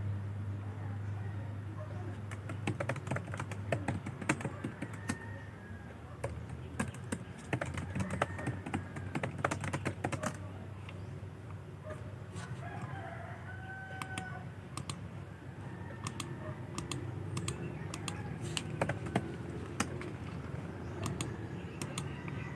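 Typing on a keyboard: irregular bursts of key clicks over a steady low hum, with a few faint bird calls near the middle.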